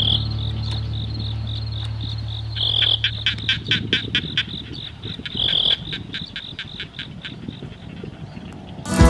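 Insects chirping in fast, evenly spaced high pulses, with a louder trill about three seconds in and another near six seconds.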